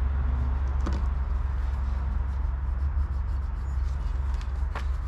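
Steady low outdoor rumble, with a few light clicks: one about a second in and another near the end.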